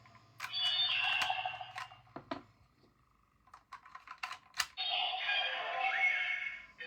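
Blazar Brace toy transformation bracelet playing electronic sound effects from its speaker in two bursts. Between the bursts its buttons click several times as they are pressed.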